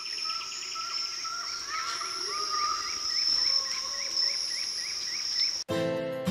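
Jungle nature ambience: a steady high insect drone, with a short rising call repeated about twice a second and scattered chirps. It cuts off sharply near the end, and music with a steady beat starts.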